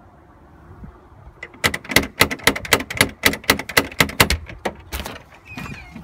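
Metal door knocker on a front door rapped rapidly over and over: a fast run of sharp, ringing knocks, about six a second, starting about a second and a half in and lasting some three seconds, with a few more near the end.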